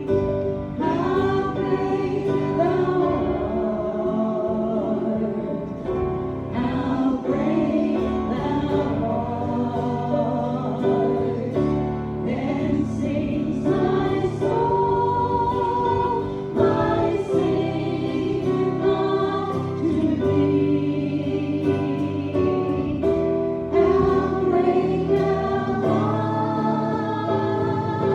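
A group of voices singing a gospel song together, carrying on without a break.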